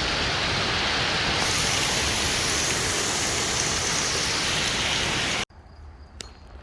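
A steady, heavy rain downpour hissing on the surfaces around. It cuts off suddenly about five and a half seconds in, leaving a much quieter outdoor background.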